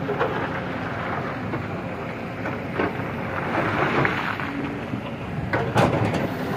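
A vehicle's engine running steadily under a rough rumble and rattle, as it drives over rocky ground; a few louder knocks come near the end.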